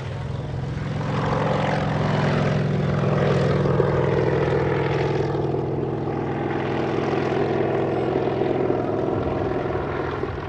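Kamov Ka-26 coaxial-rotor helicopter flying past and overhead: its two radial piston engines and twin rotors run steadily. The sound grows louder about a second in and eases slightly near the end.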